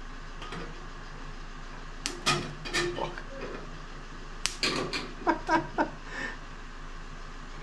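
Spot-welding dent puller at work on a steel car body panel: a steady low hum, then two clusters of sharp metallic clicks and clanks, the first about two seconds in and the second from about four and a half seconds in.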